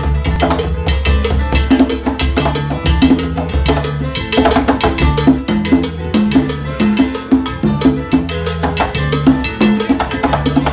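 Pair of conga drums played by hand in a salsa groove: quick, dense strokes mixing sharp slaps and ringing open tones. A band plays along underneath, with a bass line moving through short held notes.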